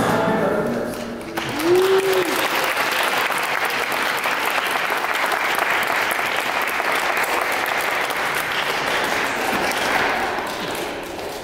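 Audience applause. It starts about a second and a half in as the dance music stops, holds steady, and fades out near the end.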